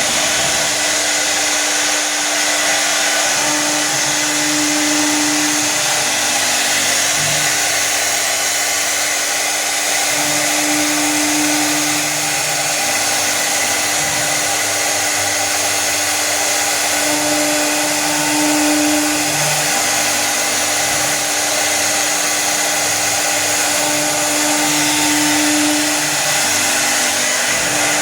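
1325 CNC router running steadily: spindle motor whine and cutting hiss, with a low hum that swells and fades about every six to seven seconds as the machine works.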